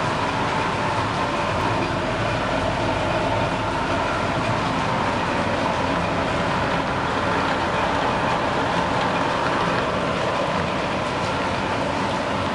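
Cashew-processing machines running steadily on the factory floor, a constant mechanical noise that does not change.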